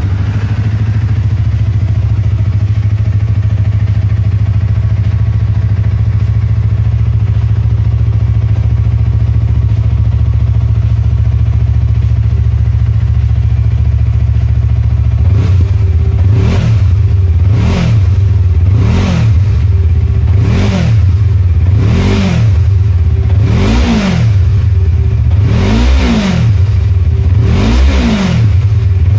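Yamaha R25's 250 cc parallel-twin engine, breathing through a long Kazen Magnificent slip-on silencer on the stock catalytic header, idles steadily. About halfway through it is blipped about eight times, each rev rising and dropping back to idle. The tone is mellow, close to the stock silencer, with no popping on throttle release and the twin-cylinder note kept down.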